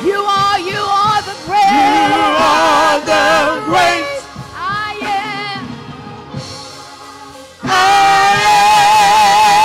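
Worship singers, men and women together, singing a gospel worship song with wavering vibrato. The singing drops quieter past the middle, then comes back strongly on a long held note near the end.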